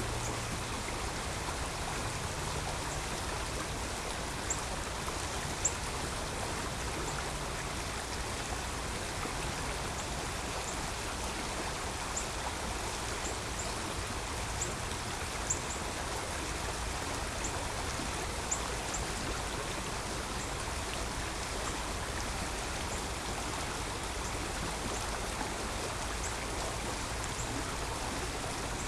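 Creek water running: a steady rush with scattered brief high ticks.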